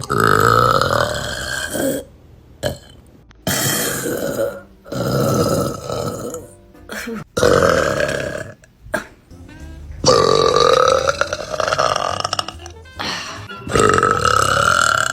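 Young women belching loudly, about six long burps one after another, with music playing underneath.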